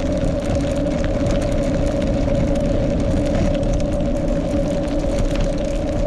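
Touring bicycle rolling along a road, with a steady humming drone.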